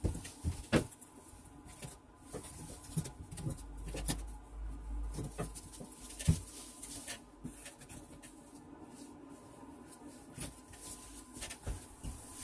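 Irregular knocks, taps and rustles from handling cardboard templates and wooden battens, with two sharper knocks, one near the start and one about six seconds in.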